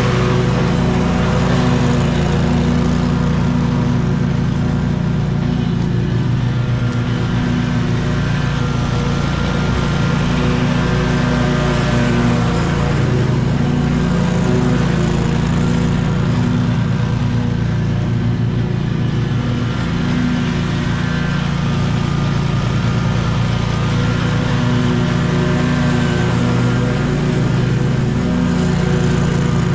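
Scag 36-inch stand-on mower's engine running steadily with the blades engaged, mowing grass with a mulching kit on the deck; the engine note wavers slightly as the mower turns and moves across the lawn.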